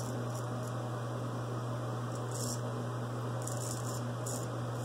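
Steady low electrical hum, with a few faint, short scrapes of a straight razor cutting stubble on the upper lip.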